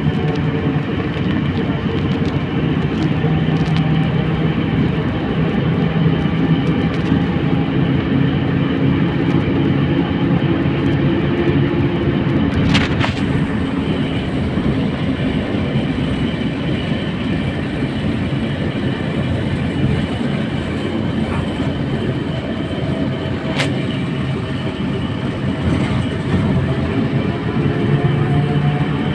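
Cabin noise of a moving trolleybus: a steady rumble of the electric drive and tyres on the road, with a hum whose tones fade and shift in pitch. Two sharp knocks, one near the middle and one later.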